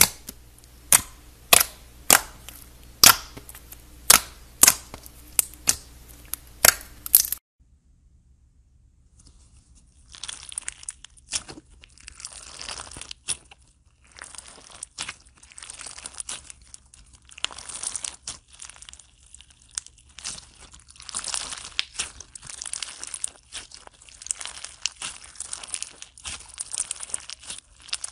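Clear yellow slime in a plastic tub poked and pulled by fingers, giving sharp popping clicks about twice a second. After a short gap, a crunchy fishbowl slime packed with plastic beads is squeezed and kneaded, giving an irregular crinkling crackle.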